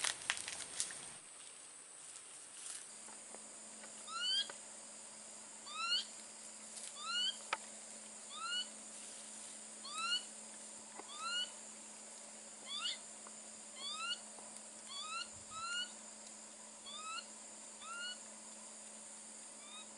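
Long-tailed macaques calling: a string of short, high, rising calls, roughly one a second.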